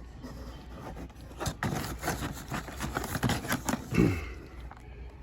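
Crackling and clicking of plastic-and-card diecast car packaging being handled, a dense run of sharp clicks through the middle seconds.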